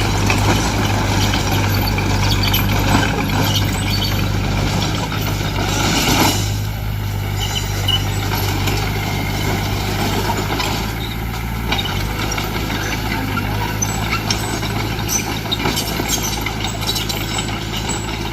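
Heavy diesel earthmoving machine engine running steadily, with scattered clanks and a short hiss about six seconds in, after which it runs slightly quieter.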